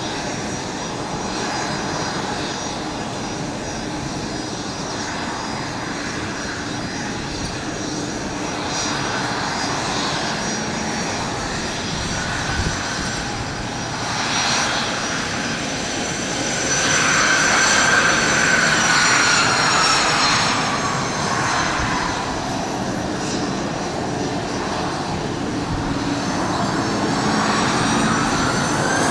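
Airliner engines running close by: a steady rush with a high whine that falls in pitch about two-thirds of the way through, where it is loudest. A new whine starts rising near the end.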